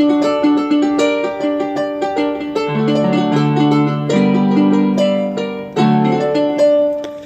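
Synthesizer keyboard playing a cumbia-style sample from its piano bank: a quick melody of short plucked-sounding notes, with held lower chords joining about three seconds in.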